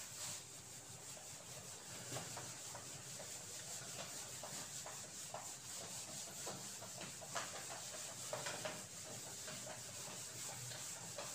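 Faint rubbing of a whiteboard being wiped clean, in short irregular strokes.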